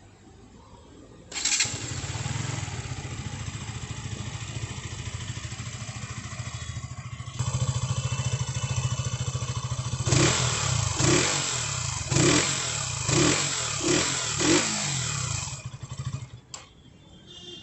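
A stock-exhaust sports motorcycle idling steadily, then revved in six quick blips, about one a second. The engine note stops near the end.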